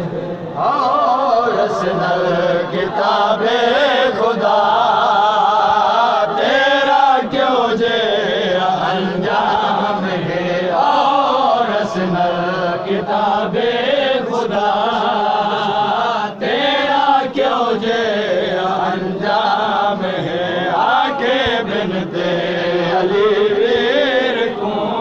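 A man chanting a Saraiki noha (Muharram lament) into a microphone, one voice carrying a wavering, mournful melody without a break.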